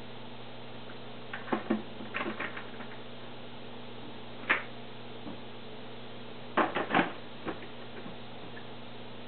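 Hard plastic clicks and knocks as the parts of a Via Aqua VA750 canister filter are handled and fitted into the canister. A flurry comes about a second and a half in, a single sharp knock near the middle, and another flurry around seven seconds in, over a steady low hum.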